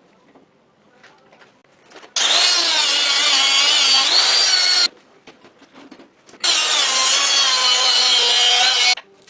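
A power tool running under load in two bursts of about two and a half seconds each. Each burst starts and stops abruptly, with a high whine that wavers in pitch.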